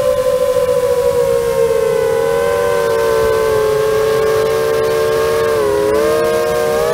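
FPV quadcopter's brushless motors and propellers whining, several close tones at once. The pitch sags slowly, holds, then wavers up and down near the end as the throttle changes.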